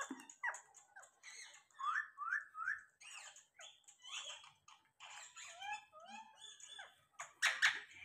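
Rose-ringed parakeets chattering in short squeaks and chirps, with three quick chirps in a row about two seconds in and a louder squawk near the end.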